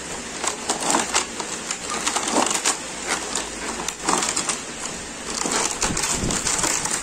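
Polystyrene foam packing tray being slid out of a cardboard box, the foam scraping and crackling against the cardboard in an irregular run of rustles and small clicks.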